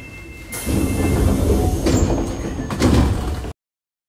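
Osaka Metro 22 series subway train at a station platform: a loud rumble starting about half a second in, with door-like sliding and two sharp knocks about a second apart. The sound cuts off abruptly near the end.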